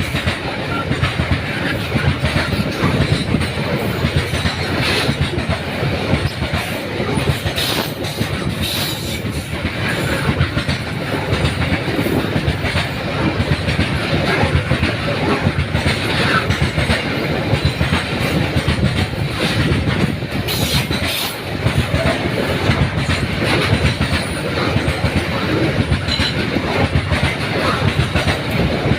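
A train running along the track: a steady rolling rumble and rattle of wheels on rails.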